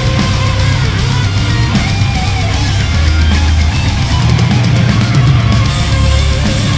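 Heavy metal played loud: distorted electric guitars over a drum kit.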